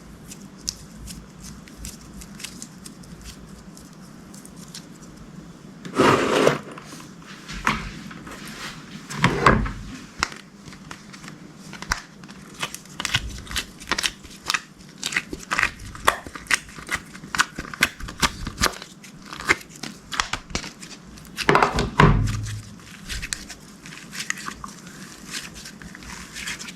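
Slime being worked by hand: a steady run of small crackling pops and clicks, with three louder crinkling, squishing bursts about six, nine and twenty-two seconds in.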